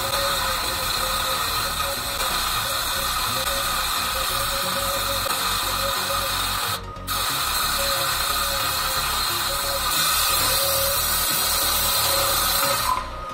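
Small 12-volt DC motor of a homemade wooden multi-tool whirring steadily. It drops out briefly about halfway through and stops abruptly near the end.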